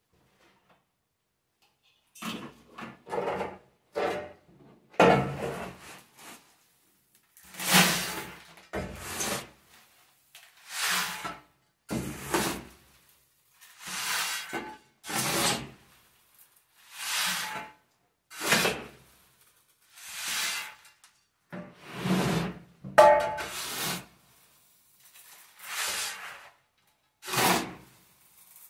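Metal shovel scooping malted barley from a wooden box and pouring it into a plastic bucket, over and over. Each scoop is a dry scrape and rustle of grain, coming about every one and a half to two seconds and starting about two seconds in.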